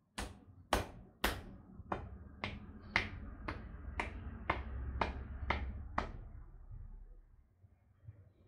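A dozen sharp hand strikes of a percussion massage, hands striking the body in an even rhythm of about two a second, stopping about six seconds in.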